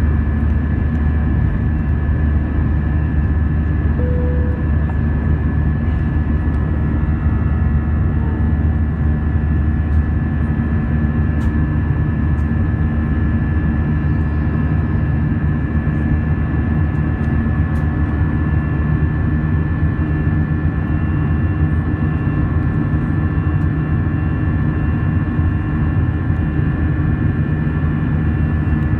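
Airbus A320 cabin noise in flight: a steady, loud low rumble of airflow and jet engines, with several steady whining tones over it.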